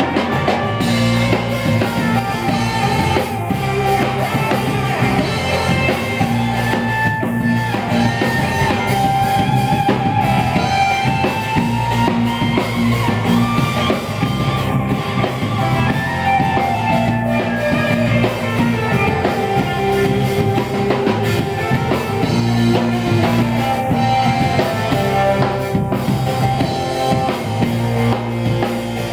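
Live rock band playing: strummed acoustic guitar, electric bass and drum kit, steady and continuous.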